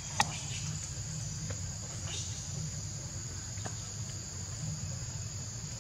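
Steady high-pitched drone of an insect chorus in the forest, with one sharp click about a quarter of a second in.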